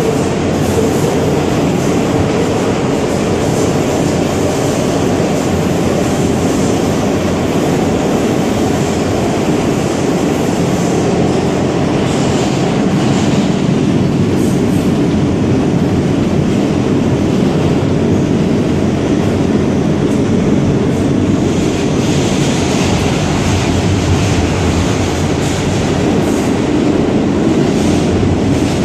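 R160 subway car running at speed, heard from inside the car: a loud, steady rumble of wheels on the rails and the running gear. A brighter, hissing high edge comes in about two-thirds of the way through.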